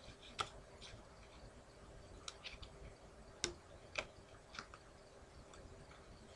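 A deck of playing cards being handled: a scatter of short, sharp card snaps and clicks, the loudest two about three and a half and four seconds in, over a faint steady hum.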